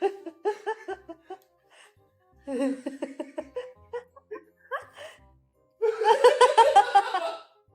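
Laughter in three bursts of quick pulsing ha-ha sounds, the last one the loudest and longest, over background music.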